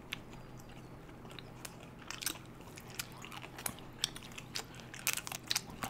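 Close-up mouth sounds of people eating ice cream bars on sticks: scattered wet clicks and smacks of biting and chewing, with light crunches of a chocolate coating, bunched about two seconds in and again near the end, over a faint steady hum.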